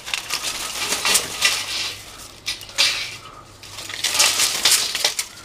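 Thin aluminum mini-blind slats clattering and scraping against one another as they are handled and pulled out, in a run of quick irregular rattles. The slats are sticky and stuck together, thought to be from something spilled on them.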